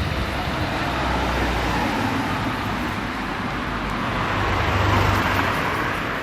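Street traffic noise, with a vehicle passing that grows loudest about five seconds in, then fades.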